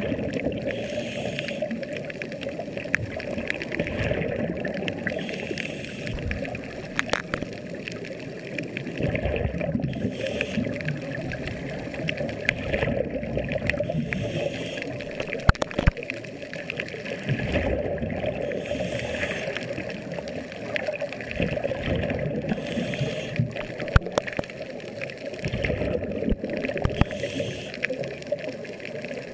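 Air bubbling and gurgling out of helmet-diving helmets, heard underwater. It swells and eases every few seconds, with scattered sharp clicks.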